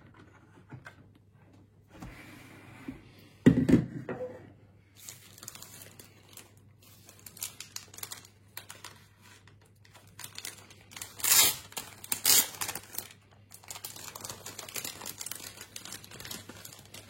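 Packaging being handled, crinkling and rustling in short bursts, with a single low thump about three and a half seconds in and a couple of louder crinkles a little past the middle.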